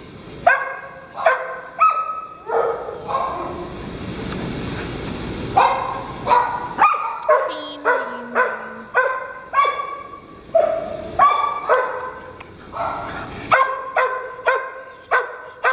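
A dog barking over and over in play, about two barks a second. A few seconds in, the barking breaks off for about two seconds while a rougher, noisier sound takes over, then resumes.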